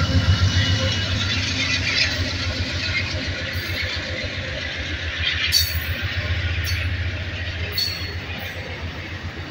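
A passenger train going by: the low, steady rumble of its GE Genesis diesel locomotives slowly fades as the double-deck Superliner passenger cars roll past. There are a few sharp clicks from the passing cars in the second half.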